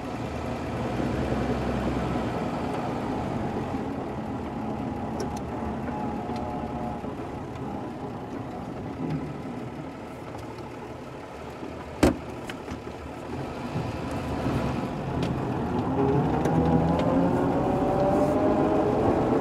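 1936 Hudson Terraplane's flathead straight-six engine heard from inside the cabin, running at low speed as the car pulls away, then rising in pitch and getting louder as it accelerates in the last third. A single sharp click a little past halfway.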